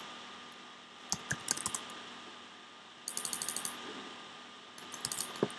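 Computer keyboard and mouse clicking in three short bursts as a new value is typed in, the middle burst a quick, even run of ticks.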